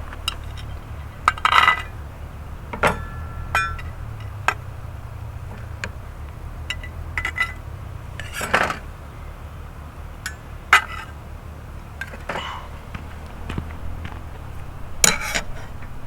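Metal cookware and utensils clinking and scraping against pans and dishes, a sharp clink or short scrape every second or so, some ringing briefly. Underneath is a low steady rumble.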